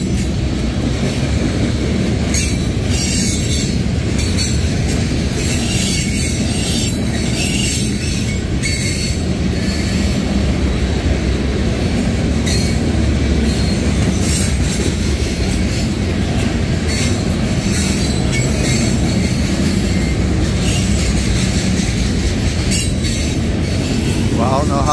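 Freight train of covered hopper cars rolling past at close range: a steady low rumble of wheels on rail, with short high-pitched wheel screeches coming and going.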